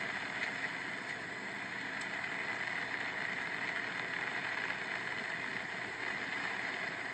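Steady rushing noise of wind and rain from a thunderstorm.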